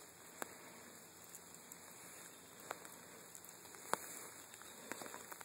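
Faint steady rain falling on wet pavement, with scattered sharp drips ticking at irregular intervals, the loudest about four seconds in.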